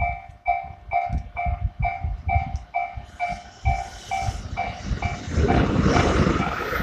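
Japanese level-crossing warning bell ringing in a steady two-tone rhythm, about two dings a second, while a train runs past with low wheel clatter. About five seconds in, a louder rush of train noise builds and partly covers the bell.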